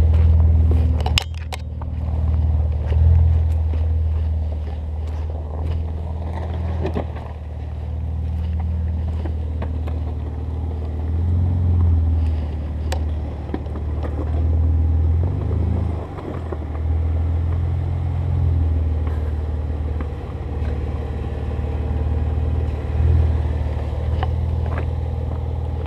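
Lifted Jeep Wrangler's engine running at low speed as it crawls over boulders, swelling with throttle several times and briefly rising and falling in pitch near the middle. A few sharp knocks about a second in.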